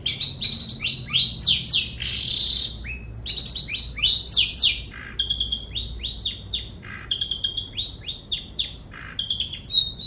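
Long-tailed shrike (cendet) singing a fast, varied song of sharp chirps, quick downward-sweeping notes and short trills, with hardly a pause.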